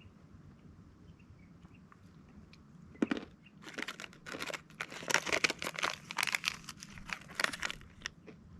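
Close, irregular crinkling and crunching that starts about three seconds in and runs for about five seconds before stopping.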